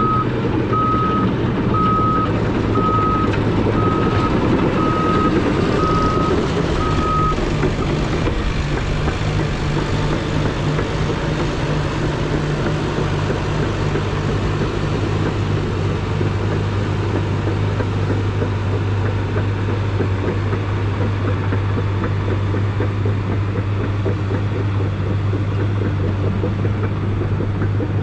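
CAT D5 bulldozer's diesel engine running steadily while working dirt, its reverse alarm beeping about once a second as it backs up. The beeping stops about seven seconds in as the dozer goes forward, and the engine note settles to a steady lower hum.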